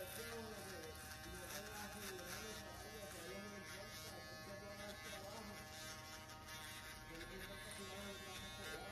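Cordless electric box (foil) shaver buzzing steadily as it is run over the jaw and neck, with voices in the background.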